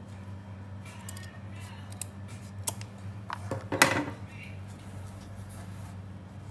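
Scissors snipping through fabric at the edge of a lampshade, trimming the fabric overlap: a few sharp blade clicks, then a louder clack about four seconds in.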